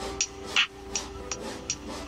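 Background lofi music: a steady beat of light ticks about three times a second, with a sharper drum hit about every second and a half, over soft held keyboard chords.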